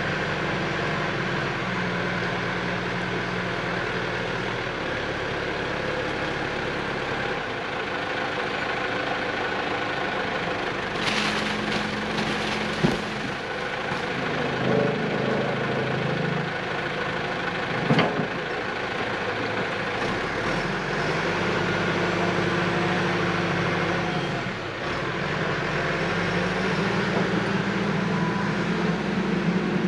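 Caterpillar backhoe loader's diesel engine running while the machine works, its engine speed rising and falling several times. Two sharp knocks stand out in the middle.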